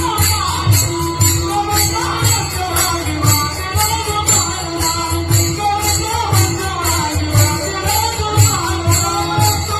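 Marathi devotional song music: drum beats under a steady jingling percussion about three strokes a second, with a wavering melody line on top.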